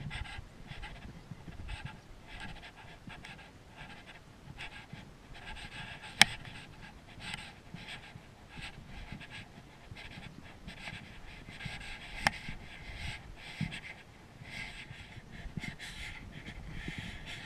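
A hiker panting while climbing a snowy slope on foot, with footsteps crunching in the snow. Two sharp clicks about six and twelve seconds in.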